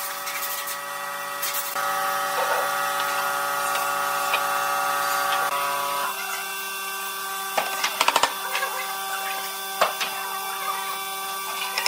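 A power tool's motor running with a steady whine that shifts in pitch about six seconds in, with a few sharp knocks later on.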